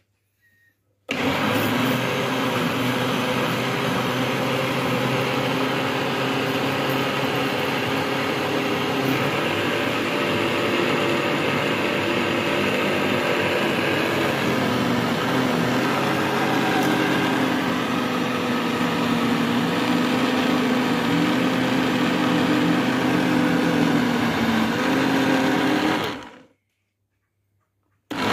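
Electric blender motor running at speed with cream in the jug, churning it toward butter. It starts abruptly about a second in, its pitch wavers a little about halfway, and it cuts off near the end, starting again just at the close.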